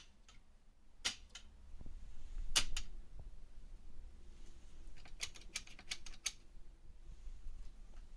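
Clicky key switches on an HP 15254A keyboard being pressed. Two pairs of sharp clicks come first, then a quick run of about half a dozen clicks starting about five seconds in.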